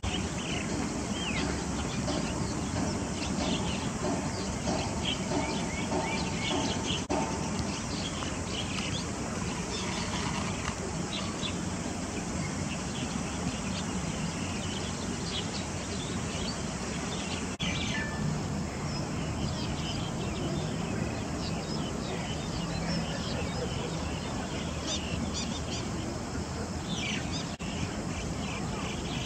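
Small birds chirping in short scattered notes over the steady hiss of a shallow stream.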